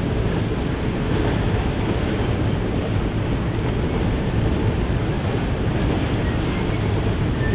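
Steady wind noise on the microphone, a continuous low rumble with no distinct events.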